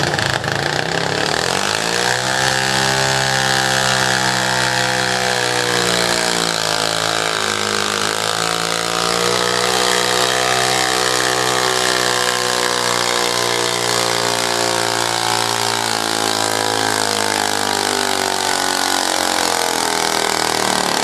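Modified garden pulling tractor's engine revving up hard about two seconds in and then running at full throttle under load as it drags a weight-transfer sled. The pitch dips briefly around eight seconds in before it holds steady again.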